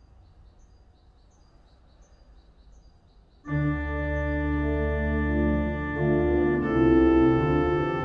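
Low room tone for about three and a half seconds, then a pipe organ by G. Christian Lobback (1993) comes in suddenly with a sustained chord over a deep pedal bass. It moves slowly to new harmonies a few seconds later.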